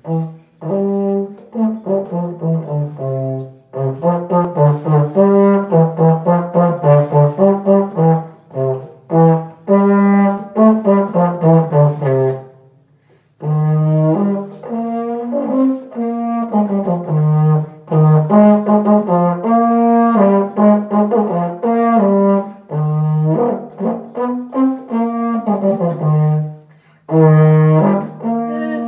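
Solo euphonium playing a melody in phrases of separate notes, with a short pause about halfway through.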